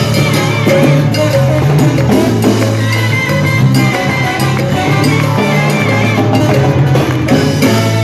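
Live salsa band playing: bass, percussion and horns.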